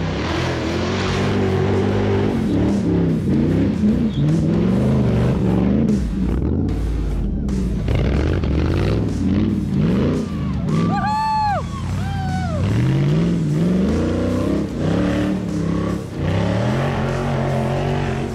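Off-road 4x4's engine revving hard, rising and falling again and again as it claws up a steep climb under load. About two-thirds of the way in come two short, high whistle-like tones that rise and fall.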